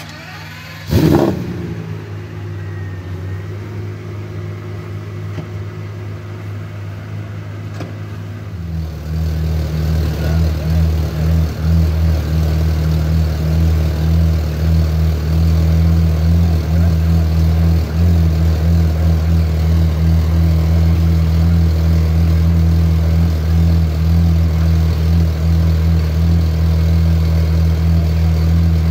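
Pagani Zonda 760 LM Roadster's AMG V12 giving one sharp rev flare about a second in that drops straight back, then idling steadily, louder from about nine seconds on.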